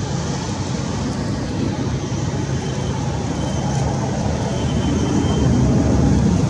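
Steady low rumble of road traffic and vehicle engines, swelling slightly near the end, with a faint thin high tone in the middle.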